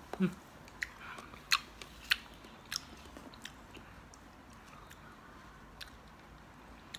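A young child chewing watermelon with wet mouth smacks, about five sharp ones in the first few seconds at a steady pace, then fainter.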